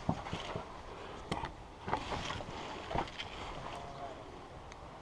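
Faint rustling and a few soft knocks, about three, from an airsoft player moving with gear.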